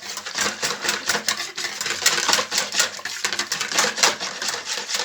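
Loose flour, water and yeast batter being mixed in a bowl: quick, irregular clicking and slapping strokes, several a second.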